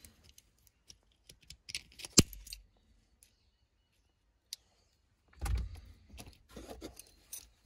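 Circlip pliers working the retaining circlips off a manual gearbox's shifter: light metallic clicks and clinks, a sharp snap about two seconds in, and a heavier metallic clatter about five and a half seconds in.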